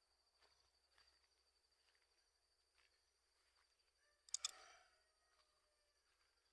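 Faint, steady high-pitched insect trill, typical of crickets, with a few soft clicks and one brief louder sound about four seconds in.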